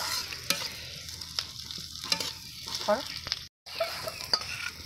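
Onions, ginger and garlic sizzling as they fry in oil in a steel karahi, stirred with a metal spatula that scrapes and clicks against the pan. The sound drops out for a moment about three and a half seconds in.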